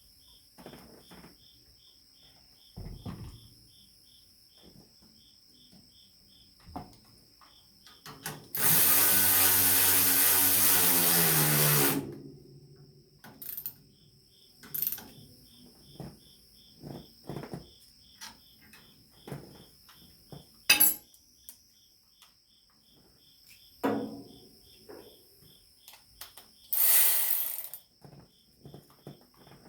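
A handheld power tool runs for about three and a half seconds, its motor pitch falling as it spins down, with a second shorter burst near the end. In between come scattered knocks and clinks of tools, over a steady rhythmic chirping of crickets.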